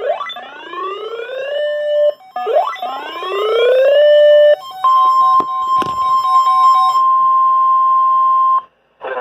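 Emergency alert tones announcing a severe thunderstorm warning. There are two rising, siren-like electronic sweeps, each climbing for about a second and a half before levelling off. These are followed by a single steady high alarm tone held for nearly four seconds, with a sharp click partway through.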